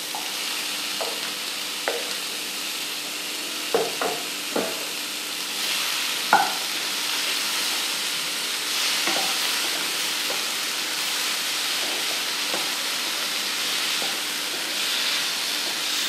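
Sliced bell peppers, cucumber and tomato sizzling in oil in a non-stick frying pan as they are sautéed, with the hiss swelling as they are stirred. A spatula scrapes and knocks against the pan several times, loudest about six seconds in.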